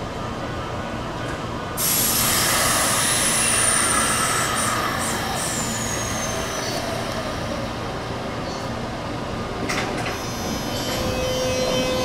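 Kintetsu limited express train moving along the platform: a steady rumble of the cars, which gets suddenly louder about two seconds in, with a high whine that falls in pitch over the next several seconds. A steady hum joins near the end.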